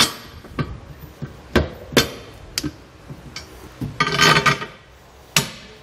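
Steel carriage bolts clinking and knocking against a steel fifth-wheel base rail as they are slid through its holes into the truck bed: a series of sharp metallic clinks, with a longer rattling clatter about four seconds in.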